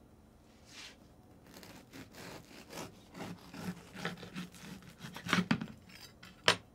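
Serrated bread knife sawing back and forth through the crust of a loaf of white sandwich bread on a wooden cutting board, a quick run of rasping strokes that gets loudest as the blade comes through the bottom. A single sharp knock near the end.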